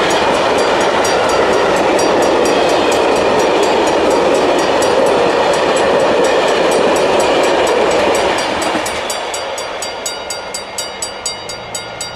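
Intermodal container freight train's wagons rolling past with steady wheel-on-rail noise. About eight seconds in, the noise drops as the tail of the train moves off, leaving a fading, regular clickety-clack of wheels over rail joints.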